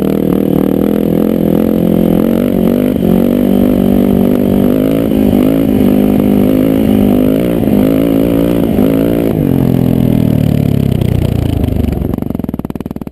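Yamaha WR enduro motorcycle's four-stroke single-cylinder engine running while riding, its pitch rising and falling with the throttle. The engine note drops about two-thirds of the way through, then the sound fades out near the end.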